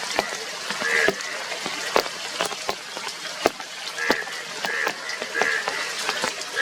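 Indian bullfrogs croaking: short calls repeated every second or so, over a steady hiss with frequent sharp clicks.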